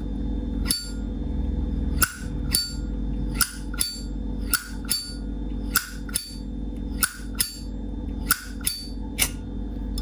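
1981 Zippo lighter's hinged metal lid flipped open and snapped shut over and over, about eight times, each time a bright ringing clink followed by a click. A steady low hum runs underneath.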